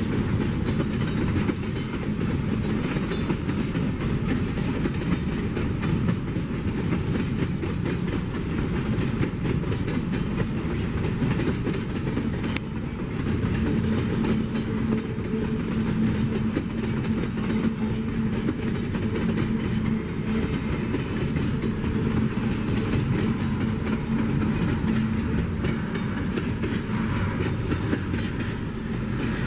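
Loaded container flatcars of a long freight train rolling past, wheels clacking over the rail joints in a steady rumble; a low steady hum joins about halfway through.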